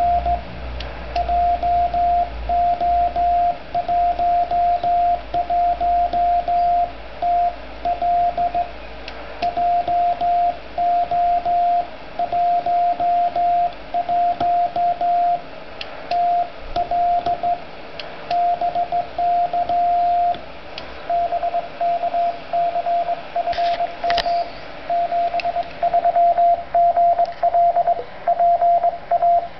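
Morse code (CW) on the 6 m band through a Yaesu FT-857 transceiver tuned to 50.085 MHz: a steady tone of about 700 Hz keyed on and off in dots and dashes, over steady receiver hiss with a few static clicks.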